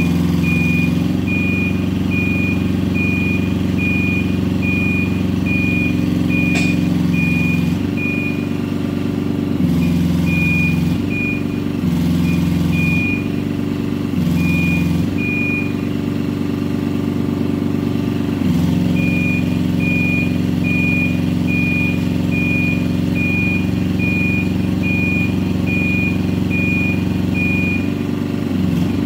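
Spider 18.90 Pro tracked spider lift running under hydraulic load as its boom is worked by remote control; the engine note dips and comes back several times as functions start and stop. Over it the lift's motion alarm beeps about one and a half times a second, falling silent for a while in the middle.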